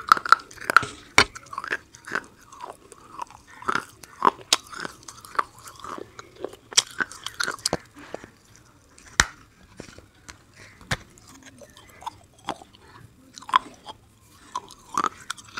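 Close-miked biting and crunching of a hard, brittle bar: irregular sharp cracks, a few much louder snaps, and wet chewing in between.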